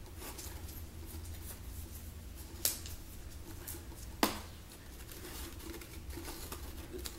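Small folded paper slips being handled and unfolded by hand: light rustling and crinkling with two sharper clicks, about two and a half and four seconds in, over a low steady hum.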